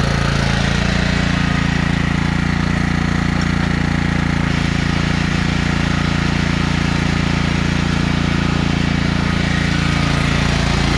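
Replacement small engine of a repowered Scotts by John Deere lawn tractor running steadily, its note shifting slightly about half a second in and again near the end, as the tractor is test-driven with its drive belt back under tension.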